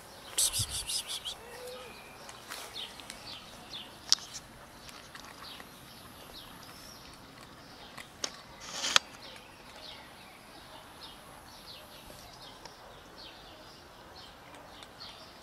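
Small birds chirping over and over in the background, with a brief rattling burst and low thump about half a second in and a few sharp clicks later.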